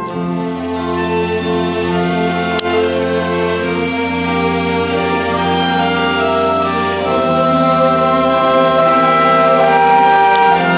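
String orchestra of violins and cellos playing a slow classical piece in long held, bowed notes, growing slowly louder.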